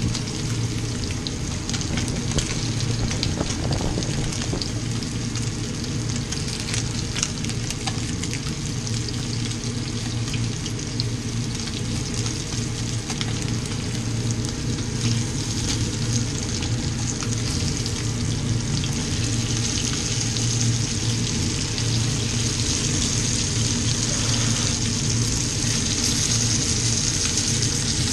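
Breaded zander pieces frying in butter and oil in a pan, sizzling steadily with many small crackles and pops. A steady low hum runs underneath.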